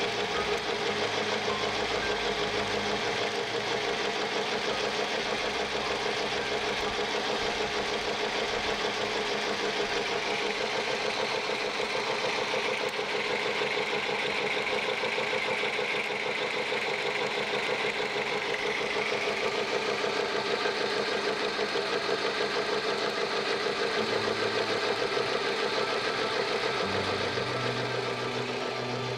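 Mamod SL1 live-steam locomotive running fast with its wheels spinning free, its cylinders exhausting steam in a rapid, steady beat alongside the clatter of the motion. The upgraded reverser block is still leaking.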